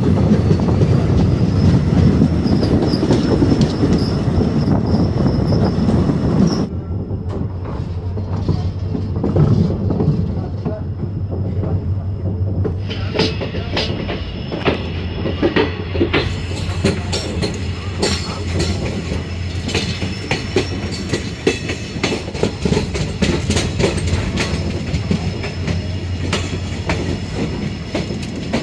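Passenger train heard from on board, running along the track: a heavy rumble of wheels on rail that drops away suddenly about seven seconds in. Then a lighter run with many sharp clicks over the rail joints and a thin, steady wheel squeal.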